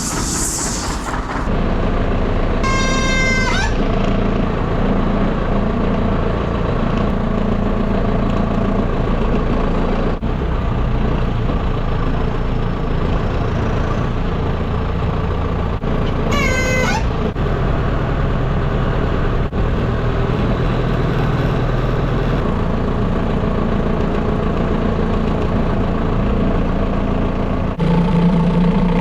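Farm tractor engine running steadily, with two short rising squeals, one about 3 seconds in and another about 16 seconds in.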